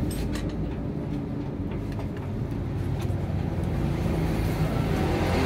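A motor vehicle engine running steadily with a low rumble, with a few light clicks over it.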